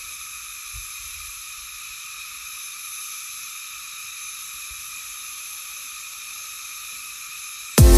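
Steady chorus of insects in tropical vegetation: a high, continuous shrill at several pitches at once, with nothing in the low range. Music cuts in near the end.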